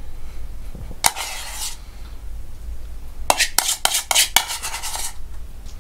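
Spoon scraping and clinking against a small bowl while spooning raspberry purée into plastic lollipop moulds: one scrape about a second in, then a quick run of clinks and scrapes from about three to five seconds in.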